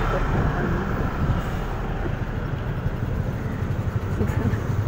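Small Honda motor scooter engine running at low speed, with a steady low rumble and street traffic around it.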